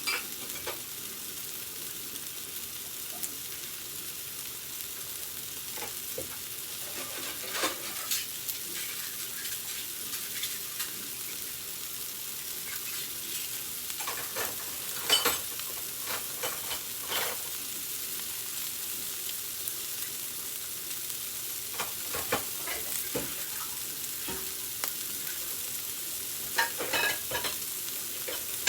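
Food sizzling steadily as it fries in a pan, with clusters of utensil scrapes and clicks every few seconds as it is stirred or turned.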